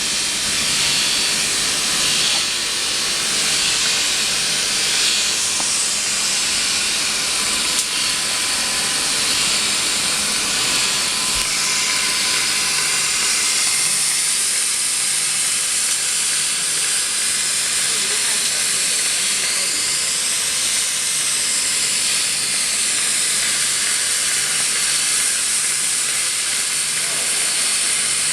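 Automatic double-head circumferential welding machine at work on a tank seam: a steady hiss from the welding arcs, with a faint low hum that comes and goes.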